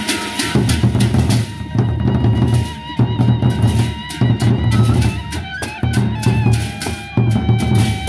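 Gendang beleq ensemble of large Sasak barrel drums beaten with sticks, the drumming coming in heavy surges about once a second with sharp high strokes over it. A held, wavering seruling (bamboo flute) melody plays over the drums.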